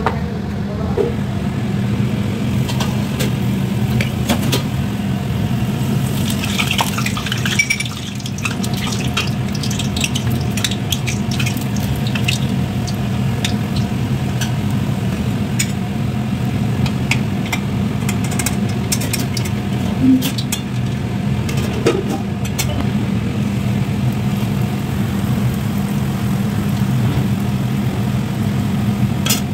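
Luchi deep-frying in hot oil in a wok, a steady sizzling hiss with scattered sharp clicks of a metal spatula against the pan, over a constant low hum.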